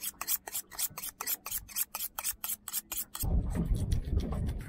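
Knife blade being sharpened on a sharpening steel: quick scraping strokes, about six a second, for roughly three seconds. Then the strokes stop and a low rumbling noise takes over.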